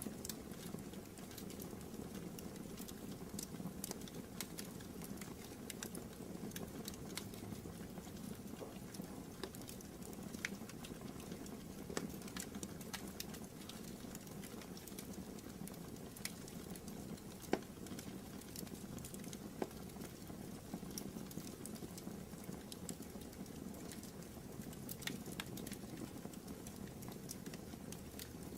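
Wood fire crackling in a fireplace: a steady low rustle of flames with frequent small sharp pops, and a couple of louder pops past the middle.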